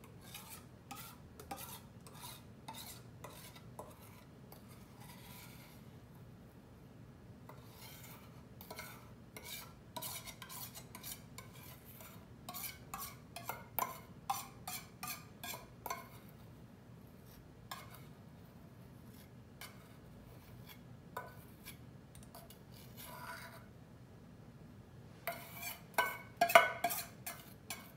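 A metal spoon scraping and clinking against the inside of a stainless-steel mixing bowl as thick homemade gesso is scraped out of it, in many short strokes, with a louder flurry of clinks near the end.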